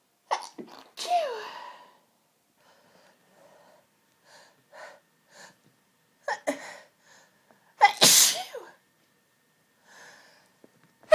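A person sneezing repeatedly in a sneezing fit: a sneeze about a second in, quieter breathy inhales, then more sneezes, the loudest about eight seconds in and another right at the end.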